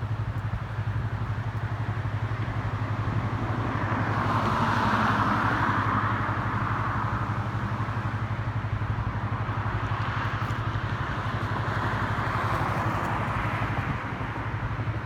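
Vehicle engine idling, a steady low hum with an even pulse. A broad rushing swell rises and fades about four to seven seconds in.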